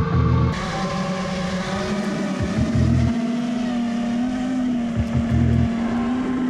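FPV mini quad's brushless motors and 5-inch three-blade props whining in flight, picked up by its onboard GoPro. The whine is mostly steady and steps up slightly in pitch about two seconds in, with a deeper hum that swells three times.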